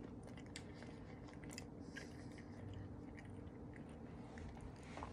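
Faint chewing of a bite of soft microwave chocolate chip mug cookie, with small mouth clicks now and then, over a faint steady hum.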